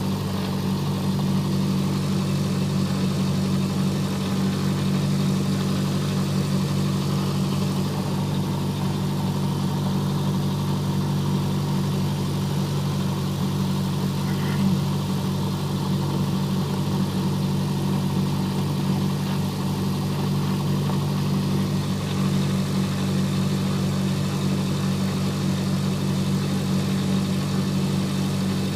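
Cessna 172 Skyhawk's piston engine and propeller running steadily at idle, heard from inside the cabin, with one brief click about halfway through.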